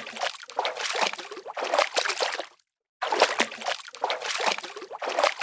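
Beach water sloshing and splashing at the shore, an uneven wash with many small splashes. It cuts out abruptly to total silence for a moment about two and a half seconds in, then resumes.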